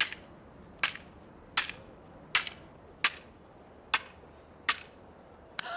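Seven sharp cracks, evenly spaced a little under a second apart, each with a brief swishing tail.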